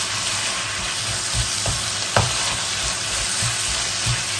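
Shredded cabbage, carrot, onion and chicken sizzling in a wok as a wooden spatula stirs and tosses them: a steady frying hiss with soft scraping, and one sharp tap about two seconds in.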